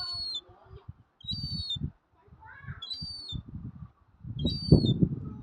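A gull giving a short, high, thin call over and over, about once every one and a half seconds. Underneath there is irregular low buffeting noise, loudest near the end.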